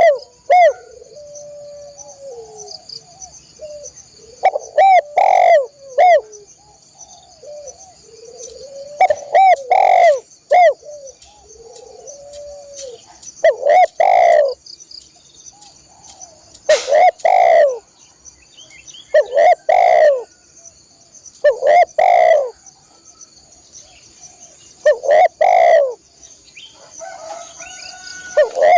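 Spotted dove (tekukur) cooing: loud coo phrases repeated every three to five seconds, with softer cooing between them, over a steady high insect drone.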